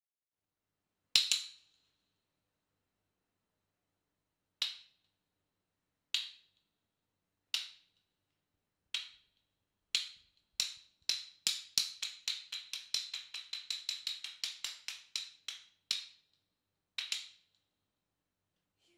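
Wooden clappers (hyoshigi) struck together: sharp, ringing clacks a second or more apart, speeding up into a fast roll, then two last single strikes near the end.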